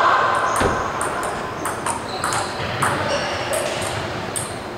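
Table tennis ball bouncing, a dozen or so sharp irregular clicks spaced a quarter to half a second apart. A drawn-out voice trails off in the first half-second.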